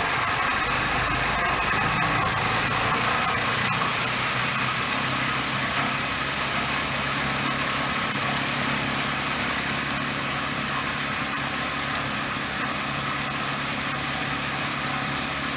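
Air conditioner with a bad capacitor running steadily: a constant mechanical hum and noise with a thin high whine over it.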